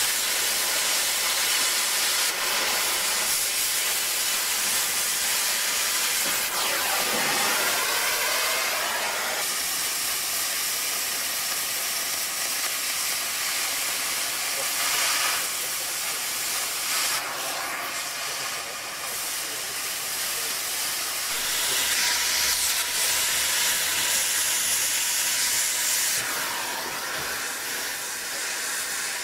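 Oxy-fuel cutting torch hissing steadily as it cuts through the steel of a steam locomotive, its hiss growing and easing a few times.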